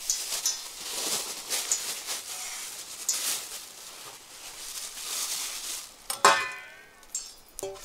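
Cooking utensils clinking and scraping against pots and pans, with a light crackling hiss. There is a brief, loud, pitched sound about six seconds in.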